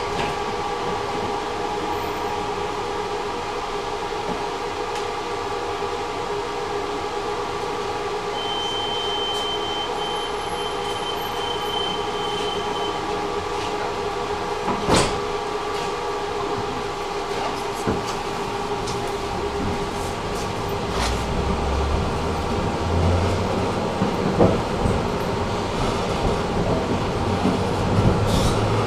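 Tram heard from inside the passenger car: a steady electric hum with a thin high whine for a few seconds, and sharp knocks from the wheels over the track now and then. A low rumble builds in the last several seconds.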